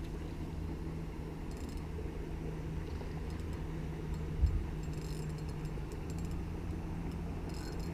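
Steady low hum of a boat motor, with a fishing reel clicking in several short bursts as a sea-run cutthroat trout is played on the line. There is one brief thump a little past halfway.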